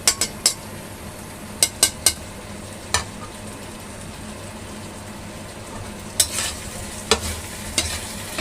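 Chicken wings sizzling in a pan of honey-lemon sauce as it reduces, stirred with a utensil that clicks and scrapes against the pan now and then over the steady hiss.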